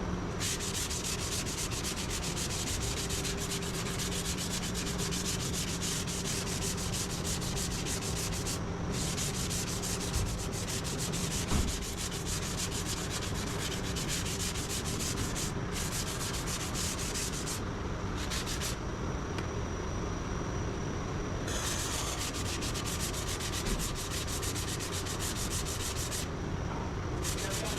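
Sanding body filler on a car's lower rear quarter panel: a steady scratchy rasp, broken by a few short pauses.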